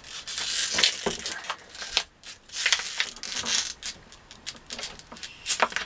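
Twisted plastic water bottle crinkling and crackling in the hands as it is held under pressure and its cap is unscrewed: a run of irregular sharp crackles and rustles.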